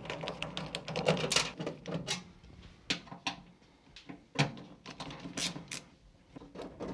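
Screws being backed out of a steel breaker-panel cover with a screwdriver: scattered light metallic clicks and scrapes.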